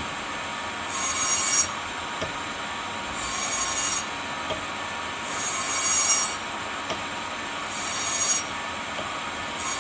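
Repeated squealing rub, one stroke under a second long about every two seconds, as a wheel on a Cincinnati No. 2 cutter grinder is worked while being greased.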